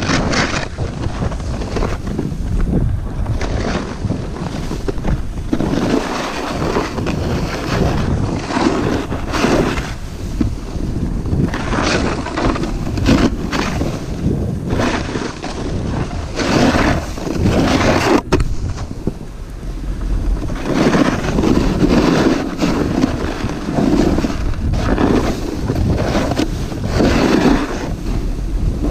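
A snowboard riding down a run, its edges scraping and hissing through the snow in repeated surges as it turns, about one every second or two. Wind rushes over the microphone throughout.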